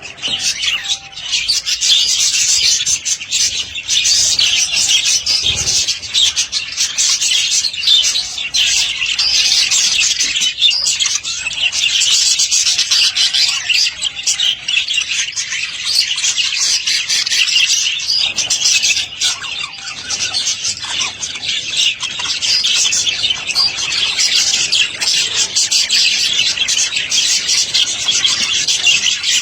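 Budgerigars chattering and warbling without a break: a dense stream of rapid, high chirps and squawks from several birds.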